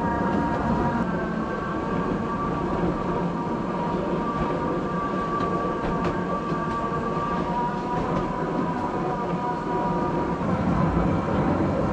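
Miniature ride-on train running along a ground-level track: a steady whine over a constant rumble of wheels on the rails.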